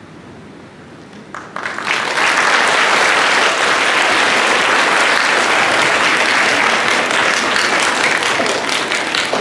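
An audience of students and staff applauding in an assembly hall. The clapping starts about a second and a half in after a brief lull, holds steady and loud, and begins to die down near the end.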